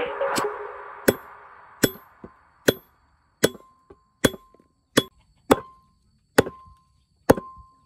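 A tool striking a hard object in a steady series of sharp blows, about nine in all at a little under one a second, several leaving a brief ring.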